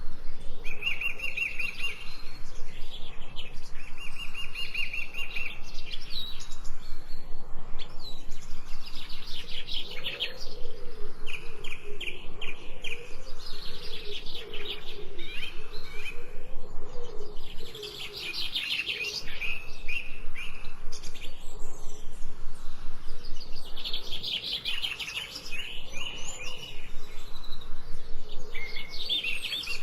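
Birds chirping in quick, repeated trills, with several calls overlapping throughout.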